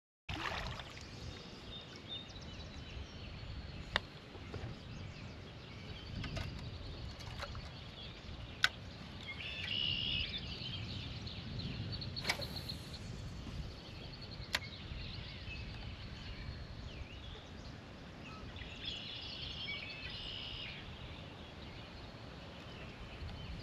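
Outdoor ambience on open water during kayak fishing: a low steady rumble, a bird singing about ten seconds in and again near twenty seconds, and four sharp clicks spread through the first fifteen seconds.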